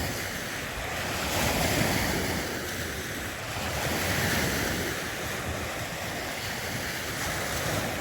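Wind buffeting the microphone over the wash of lake waves, a steady rushing noise that swells and eases every couple of seconds.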